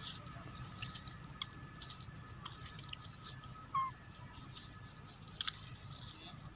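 Faint crackling and ticking of dry leaf litter as young macaques scramble about, with one short squeak about four seconds in and a sharp tick a second or so later.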